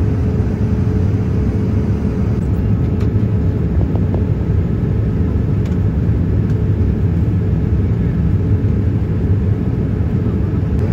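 Steady low roar of a Boeing 787-9 airliner cabin in flight, with a faint steady hum and a few faint clicks.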